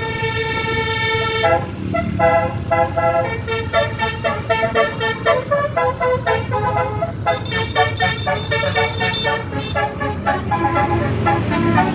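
A bus's Basuri telolet musical horn playing a tune: a held chord for about a second and a half, then a run of quick, short notes changing pitch, with the bus engine rumbling underneath.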